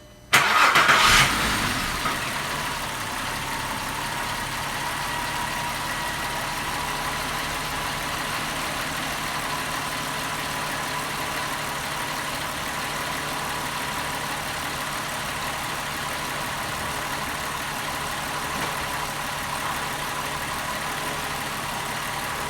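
A 2001 VW Jetta's 12-valve VR6 engine starting: it catches at once with a loud flare for about a second, then settles into a steady idle that runs smoothly.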